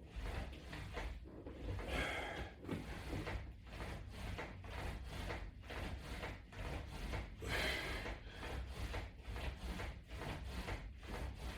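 Ab roller wheel rolling back and forth across the floor, a steady rhythmic rubbing and scraping, with a louder breath about every five seconds.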